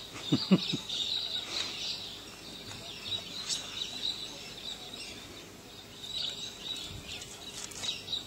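Outdoor ambience of small birds chirping steadily in the background, with a few brief clicks along the way.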